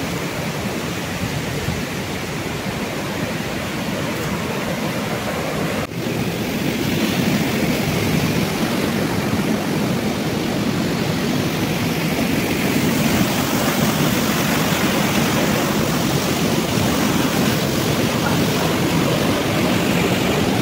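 Waterfall and stream water rushing steadily. It is broken by a brief dropout about six seconds in and is a little louder after it.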